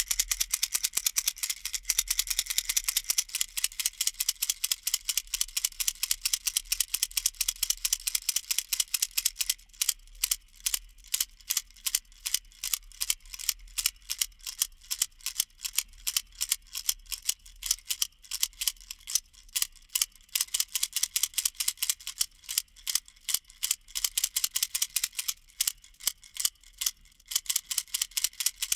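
Plastic baby rattle shaken continuously, a rapid rhythmic rattling of many small sharp clicks. It rattles densely for the first third, then the clicks come crisper and more spaced out.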